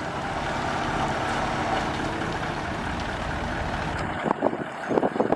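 Four-wheel-drive vehicle driving, with steady engine and tyre noise. About four seconds in it cuts off suddenly, and a few short, sharp sounds follow.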